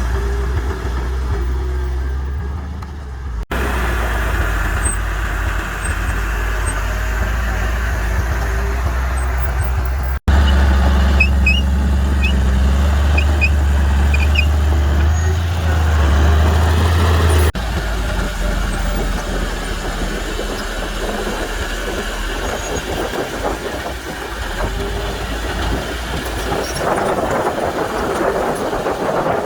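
Heavy earthmoving machinery, a bulldozer and dump trucks, running with a deep steady diesel engine rumble. The sound breaks off and changes abruptly three times, the loudest stretch lasting from about 10 to 17 seconds in.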